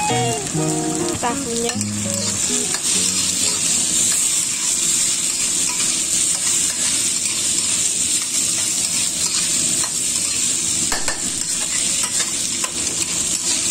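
Diced tofu, vegan sausage, mushroom and carrot frying in oil in a wok with a steady sizzle, as a metal spatula stirs and scrapes them. A few plucked music notes fade out in the first few seconds.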